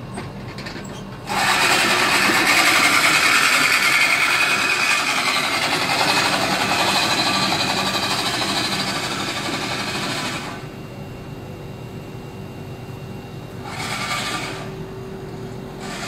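Manual push reel lawn mower running over grass, its spinning cylinder blades cutting as it is pushed. It starts about a second in, fades slowly as the mower moves away, and drops off about two-thirds of the way through, with a short burst again near the end.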